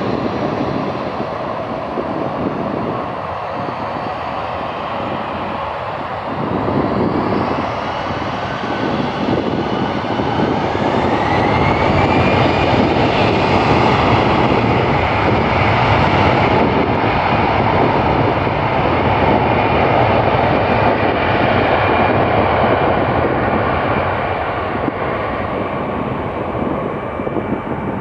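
Airbus A320-family twin jet's engines spooling up to takeoff thrust: a whine that rises in pitch over several seconds, then a loud, steady jet roar as it sets off on its takeoff roll, easing off near the end.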